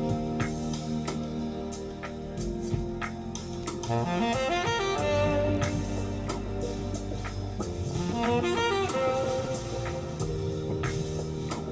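Instrumental jazz passage: saxophone playing a melody with quick runs of notes over a drum kit keeping time.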